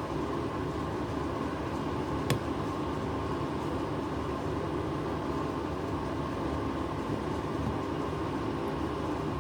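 Steady mechanical hum with rushing air, broken by one sharp click about two seconds in.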